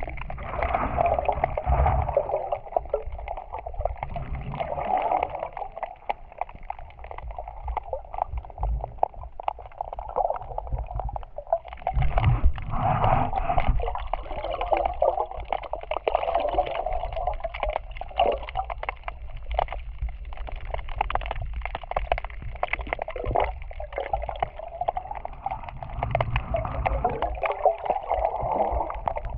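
Seawater sloshing and gurgling, heard muffled from underwater, with many small crackling clicks. It swells and fades in uneven surges, loudest at about twelve to sixteen seconds in and again near the end.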